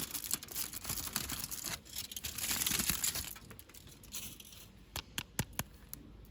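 Toy packaging being crinkled and torn open by hand, a dense crackling for about three seconds. It then goes quieter, with a few sharp clicks about five seconds in.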